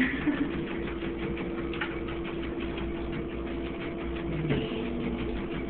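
Treadmill motor running with a steady hum, a small dog's paws pattering lightly on the moving belt.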